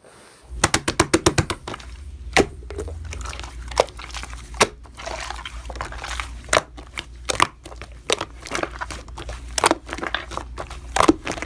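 Slime being squeezed and poked by hand, making a quick run of wet clicks and pops at first and then scattered sharper snaps over a soft squelching rustle.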